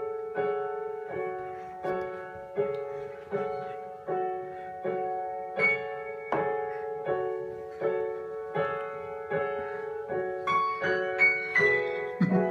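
Piano music: slow chords struck evenly, about one every three quarters of a second, each dying away before the next, with a few higher notes added near the end.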